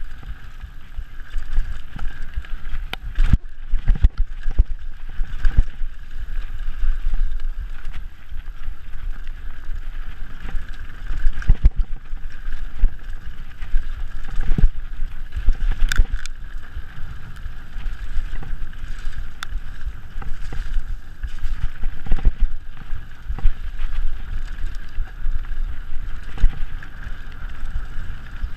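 Onboard sound of a mountain bike descending a rough dirt trail at speed: wind buffeting the camera microphone and tyres rumbling over dirt and rocks, with frequent irregular knocks and rattles from the bike over bumps.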